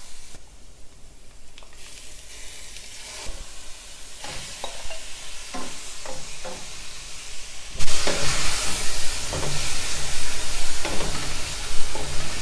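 Meat pieces with fried onions and ginger-garlic paste sizzling in oil in a stainless-steel pan, being browned while a wooden spoon stirs them and knocks against the pan. The sizzle is faint at first and turns suddenly much louder about eight seconds in.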